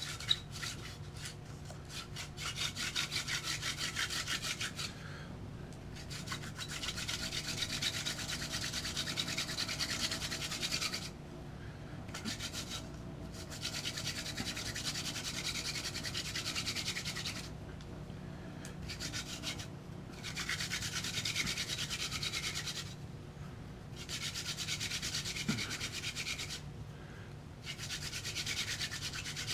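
Wooden hand-drill spindle spun back and forth between the palms on a wooden hearth board for friction fire-lighting: a dry rubbing in runs of several seconds, broken by about five short pauses as the hands go back up the spindle. The spindle's centre has been bored out to lower friction in the socket.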